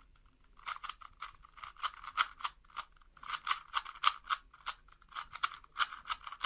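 Plastic Rubik's Cube being turned rapidly by hand: a fast, uneven run of clacking clicks, several a second, in the closing turns of a solve.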